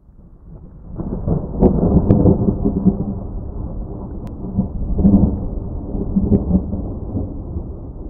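Rolling thunder fading in from silence, with heavy peals about a second in and again about five seconds in.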